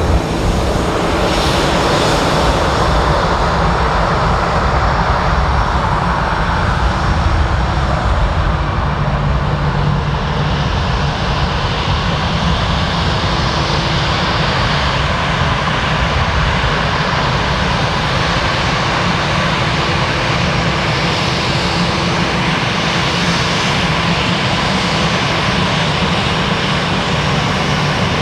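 The CFM56-5B jet engines of an Airbus A319 run with a steady, even roar that neither rises nor falls.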